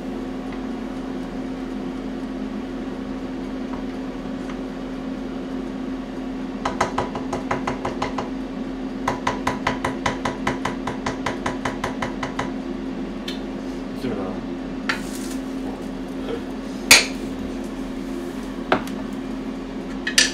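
Kitchen clatter over a steady hum: two runs of rapid, even light metallic clicking, about eight a second, then a few single clinks of dishes, the loudest about two-thirds of the way in.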